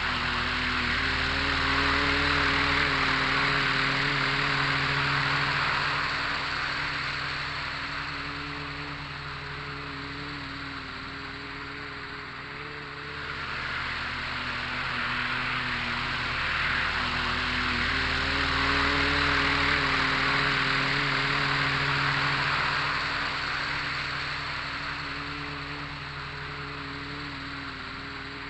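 Small electric RC scale helicopter in flight: brushless motors whining over the hiss of the rotor blades. It grows louder and fades twice as it passes closer and farther away.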